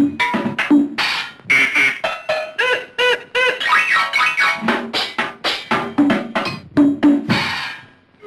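A quick run of cartoon drum-hit sound effects, about three sharp strikes a second, with a stretch of short bouncing pitched tones in the middle.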